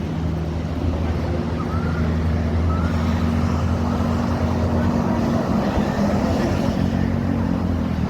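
Toll-road traffic going by, dominated by the steady hum of a large vehicle's engine that eases lower near the end; no horn sounds.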